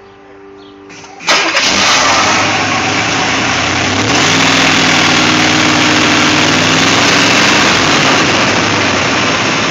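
Chevrolet 350 cubic-inch small-block V8 (1973 block) starting up about a second in and settling into a steady, smooth idle; its idle speed rises a little a few seconds later.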